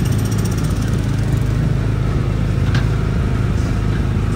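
Small gasoline engine of a Tomorrowland Speedway ride car running steadily while driving along the track, heard from the car's seat.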